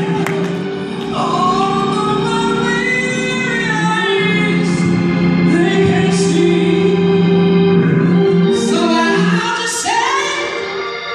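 A woman singing gospel into a handheld microphone, holding long notes that slide up and down in pitch, over steady held chords.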